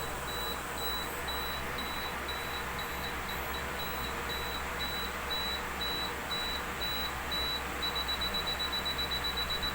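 Digital camera's self-timer beeping its countdown: a high, even beep about two to three times a second, switching to rapid beeps near the end as the shutter is about to fire.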